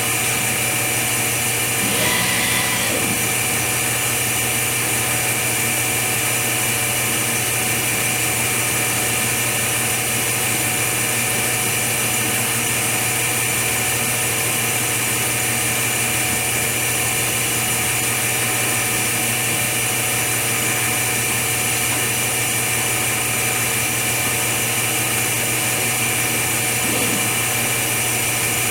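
Steady machine hum and whine of running equipment, many constant tones over a hiss, with a brief mechanical sound about two seconds in and another near the end.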